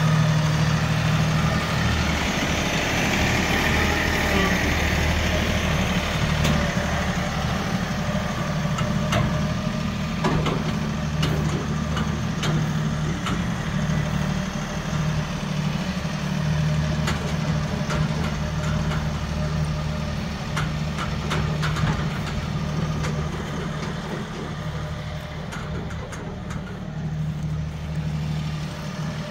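Tractor diesel engine running steadily at low speed, with scattered light clicks and knocks over it.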